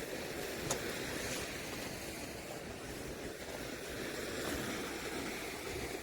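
Steady outdoor rushing noise with no clear tone, with a single sharp tick less than a second in.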